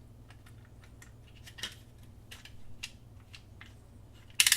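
Scattered small clicks and taps of a multimeter's plastic case and parts being handled, with a sharp, louder clatter near the end.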